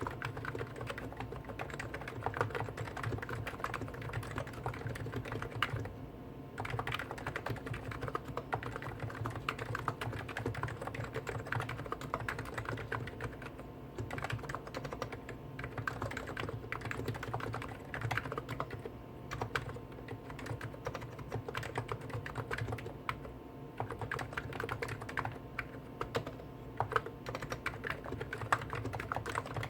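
Continuous typing on two Hansung GTune electro-capacitive (Topre-style) keyboards at once, a CHF4 Snow White with 50 g switches and a CHF7 Office Master with 55 g switches: a dense, irregular stream of key strokes with no break.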